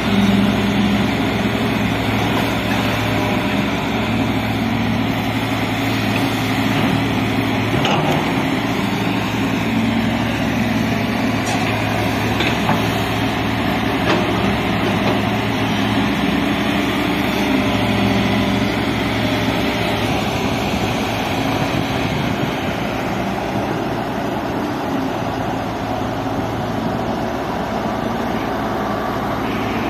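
Diesel engine of a JCB tracked hydraulic excavator running steadily as the machine works in deep mud, a low hum whose pitch changes a few times.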